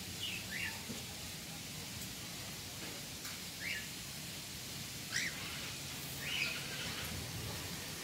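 Caged cockatiels giving short, high chirping calls, about four of them spaced a second or more apart, over a steady outdoor hiss.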